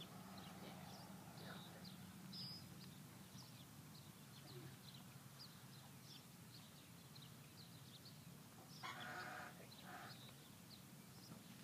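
Near silence with faint high chirps throughout and a low steady hum. About nine seconds in there is a brief distant farm-animal call, then a shorter one just after.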